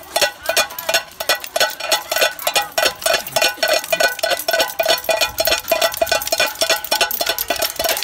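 Children banging metal pan lids, pots and pails with wooden spoons: a dense, irregular clatter of metal strikes, several a second, each with a short metallic ring.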